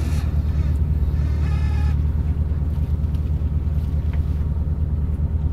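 A salmon purse seiner's engine running steadily, a low even drone.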